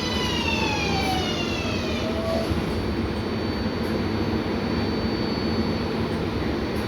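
An R188 subway train's propulsion whine: a stack of tones falls in pitch over about the first two and a half seconds as the train slows, then fades. Under it runs the steady rumble of the car running on the rails.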